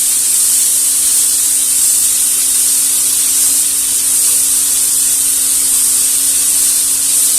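Chopped vegetables sizzling steadily in a little hot oil in a pan, a constant high hiss of frying, with a faint steady hum underneath.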